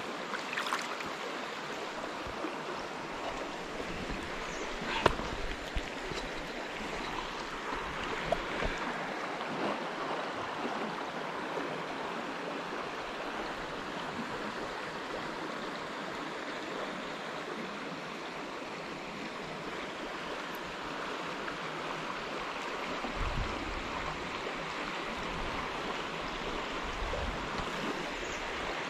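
Shallow stream water running and rippling steadily, with a few short sharp knocks, the loudest about five seconds in.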